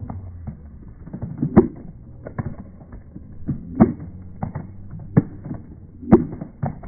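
A series of irregular clicks and knocks, with five or so louder knocks spaced one to two seconds apart.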